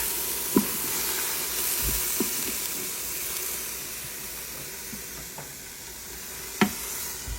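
Food sizzling in a hot frying pan, the hiss slowly fading, with a few sharp clicks, the loudest near the end.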